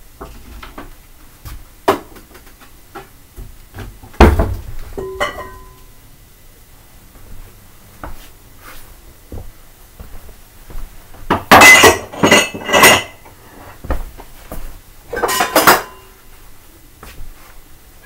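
Dishes clinking and clattering as they are handled and washed. There is a heavy knock about four seconds in with a brief ring after it, scattered light clinks, and two spells of loud clattering in the second half.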